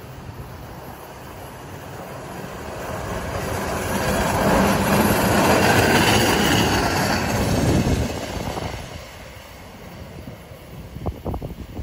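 Hi-rail pickup truck running along the rails on its flanged guide wheels, passing close by: the engine and rail-wheel noise swell to a peak about halfway through, then fade as it moves away.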